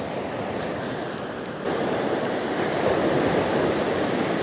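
Small waves breaking and washing up the shore, a steady rush of water that grows louder about a second and a half in.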